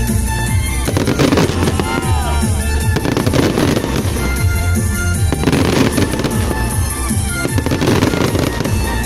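Fireworks going off in rapid, continuous bursts over loud background music, with a few whistling glides about two seconds in.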